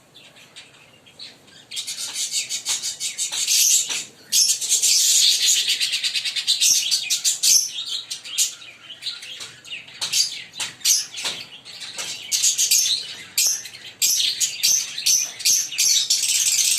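Fischer's lovebirds chattering in fast, high-pitched chirps, sparse at first and then almost unbroken after a couple of seconds.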